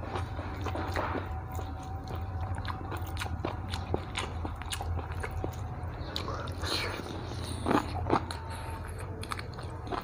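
A man chewing and biting food close to a clip-on microphone, a run of many small, sharp mouth clicks and crunches, over a steady low hum.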